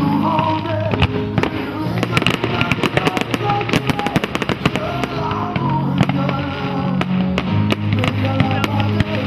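Fireworks going off over loud music, with a rapid run of sharp bangs and crackling reports that is densest in the middle.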